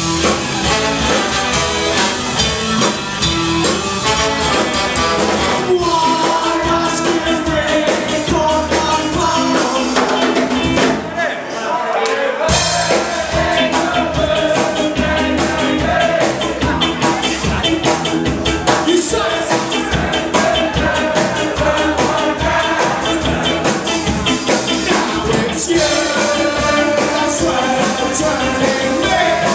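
Live ska band playing a ska number, with saxophone, trombone, electric guitar and drum kit. About eleven seconds in the band drops to a sparser break for a second or two before the full band comes back in.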